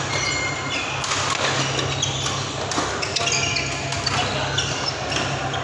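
Badminton doubles rally: rackets striking the shuttlecock in sharp hits, and many short, high squeaks of shoes on the court mat, over a steady low hum.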